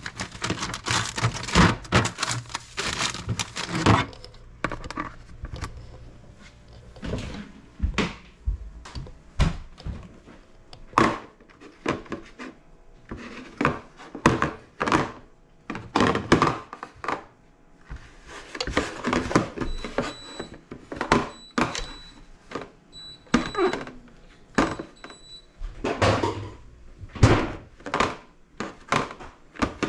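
Repeated clunks, knocks and clatters of containers and fridge parts being handled while cleaning out a refrigerator. A faint, thin high tone comes and goes in the middle.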